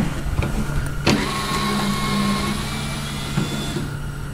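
Small cordless electric screwdriver running for about three seconds, backing out a screw from a car's plastic underbody panel. It starts with a click about a second in.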